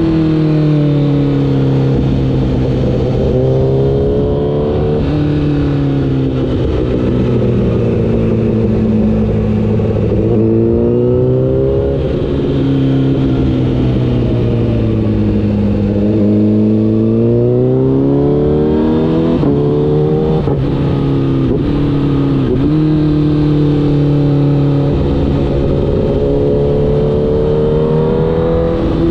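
Honda CBR1000RR's inline-four engine under way, its pitch rising under throttle and dropping in steps at the gear changes several times. Near the middle it falls slowly for a few seconds, then climbs again.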